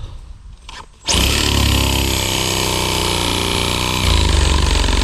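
A motor-driven tool starts abruptly about a second in and runs steadily at speed, its low hum growing heavier about four seconds in.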